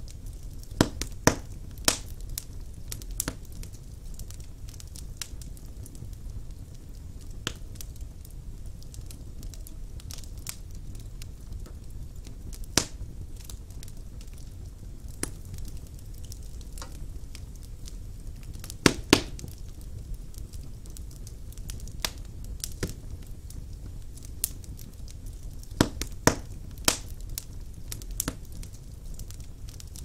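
Wood logs burning in a fireplace: irregular sharp crackles and pops over a low, steady rumble of the flames, with a quick pair of louder pops about two-thirds of the way through.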